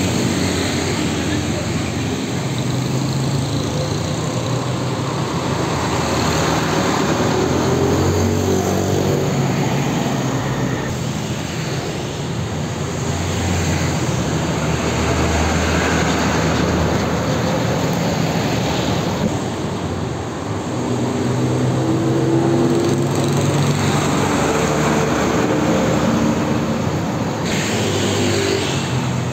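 Mitsubishi Fuso diesel trucks driving past one after another, their engines running with the note rising and falling, over steady street traffic and motorbikes.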